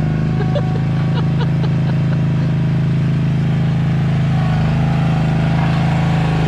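Ride-on road roller's engine running steadily as the roller compacts loose gravel, a constant low drone that holds even throughout.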